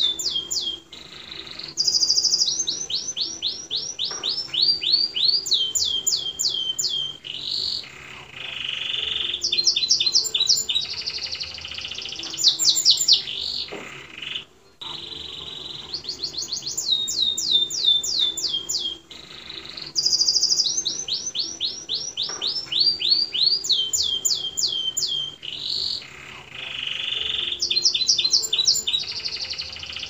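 Domestic canary singing a long, continuous song. Runs of rapid downward-sweeping high notes alternate with buzzy rolls and short pauses, and the same roughly 15-second stretch of song plays twice.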